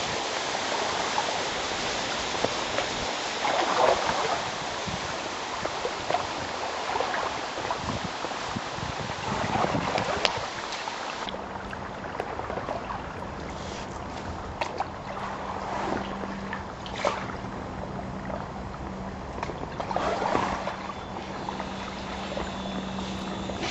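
Inflatable kayak paddle dipping and swishing through canal water every few seconds, over a steady rushing noise. About eleven seconds in, the rushing drops away suddenly and a low steady hum sets in.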